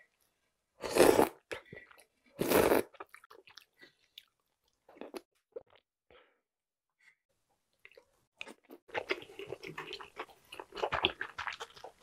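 Close-miked eating sounds: two loud slurping sips of soup broth from a wooden spoon, about one and two and a half seconds in, then soft mouth clicks and chewing. Over the last three seconds comes a denser run of slurping and clicking.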